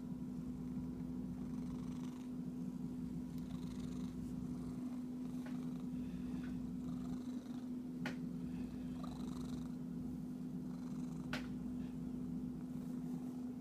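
Cat purring steadily while being scratched, with two short sharp clicks, about eight and eleven seconds in.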